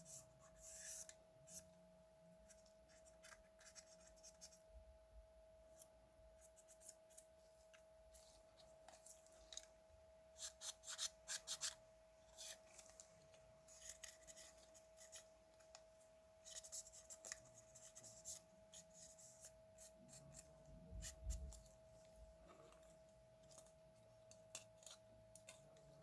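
Faint, scattered clicks, scrapes and rubbing of small tools and parts being handled, with a thicker cluster of clicks a little before halfway. A faint steady tone sits underneath throughout.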